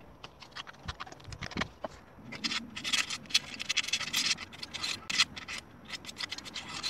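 Razor blade scraping old gasket and sealant off the water pump mating face of a Volvo B20 engine block, in quick irregular scratching strokes that come thicker and louder after about two seconds.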